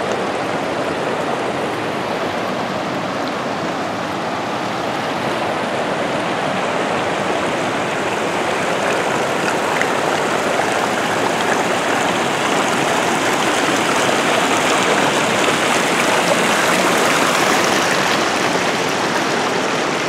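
Rushing water of a waterfall: a steady, even rush that swells slightly in the second half.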